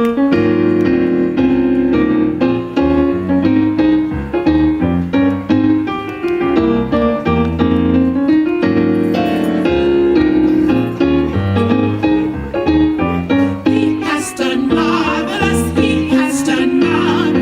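Gospel music: a piano or keyboard plays held chords, and a singing voice with vibrato comes in near the end.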